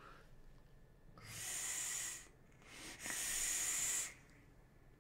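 Air drawn through a vape mod's atomizer as he pulls on it: two hissing draws of about a second each, a short gap between them.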